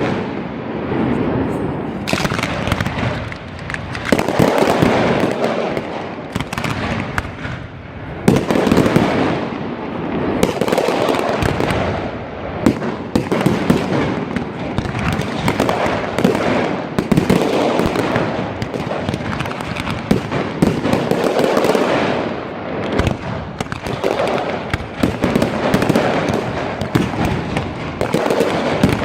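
Aerial fireworks display: a dense, continuous run of bangs and crackling bursts, swelling into heavier volleys every few seconds.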